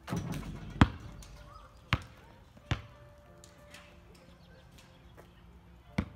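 A basketball comes down through the hoop with a short rattle of rim and net, then bounces on the asphalt driveway three times, the bounces coming closer together. Near the end the ball strikes the asphalt once more, as a dribble.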